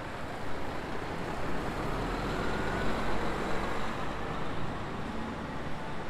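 A large coach driving past in traffic. Its engine and tyre noise swells to a peak midway and then eases off, with a faint whine near the middle.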